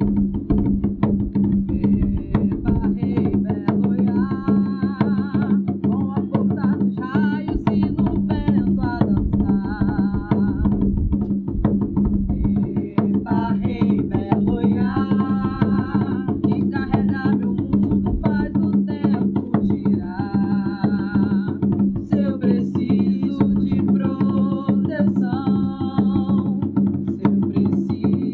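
Percussion-led music: fast, steady drumming over a constant low held note, with a wavering melodic line, voice-like, rising and falling in phrases above it.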